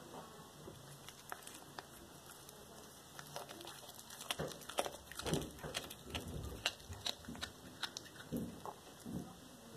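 A cat chewing and biting into a whole raw rat: irregular wet bites and crunches, sparse at first and coming thicker and louder from about four seconds in.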